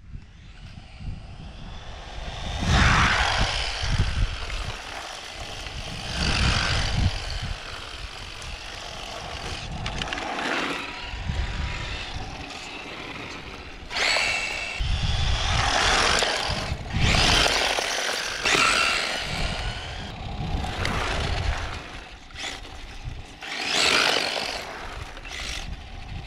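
Tamiya M-05L Suzuki Swift Sport electric RC car driving on asphalt: a motor whine and tyre rush that swell and fade again and again as the car passes close by.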